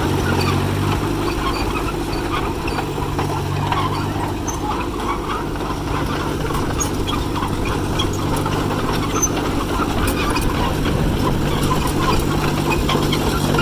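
John Deere 1010 crawler dozer's engine running steadily as the machine is driven around, with small scattered clicks and rattles over the engine note.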